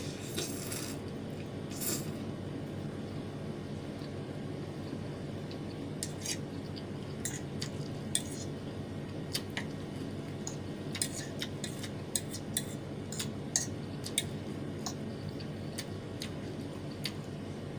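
Metal fork clinking and scraping against a plate as noodles are twirled, in scattered short clicks, with chewing between.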